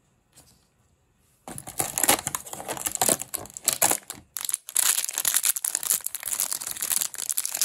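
A small crinkly yellow wrapper around a toy figure being crumpled and torn open by hand, starting about one and a half seconds in, with a brief pause a little past the middle.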